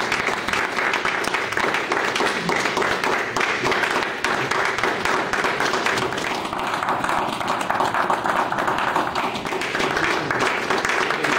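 A small audience applauding: many hands clapping steadily without a break.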